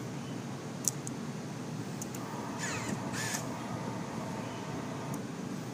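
Ducati Diavel Carbon's ignition switched on without starting the engine. A click comes about a second in, then a faint hum of about three seconds as the fuel pump primes, with a brief whir partway through, over steady low background noise.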